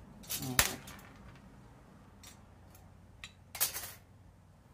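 Metal parts clinking and rattling as the cylinder head of a Predator 212 engine is worked loose and lifted off the block. There is a sharp clink about half a second in, a couple of faint ticks, then a short rattle near the end.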